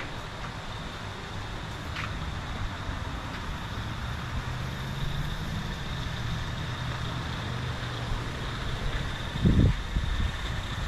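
Steady low rumble of passing road traffic, with a held low engine hum in the middle. A short, louder low thump comes near the end.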